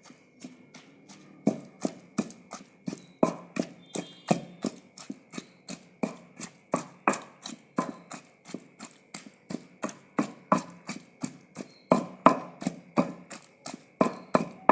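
Rhythmic pounding in a kunda mortar, about three strikes a second, as onion, tomato, chillies, garlic and fenugreek are crushed into chutney; the strikes grow louder about a second and a half in.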